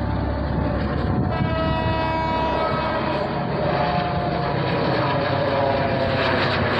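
Train horn sounding for about two seconds, beginning about a second in, over the steady rumble of the passing train; fainter horn tones linger afterwards and the train noise grows near the end.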